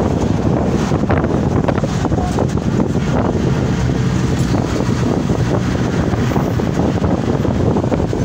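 Steady road noise and wind rush from a moving car, with wind buffeting the microphone.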